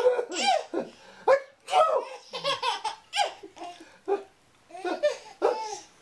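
A baby laughing in a quick run of short giggling bursts, one after another.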